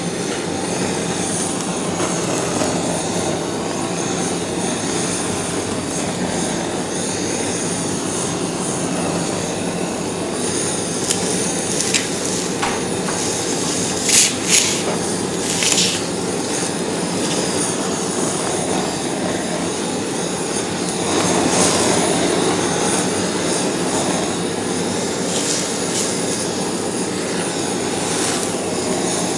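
Butane torch flame running with a steady rushing hiss while it browns the cheese and pepperoni on top of a baked pizza. A few brief sharp clicks and crackles come about halfway through.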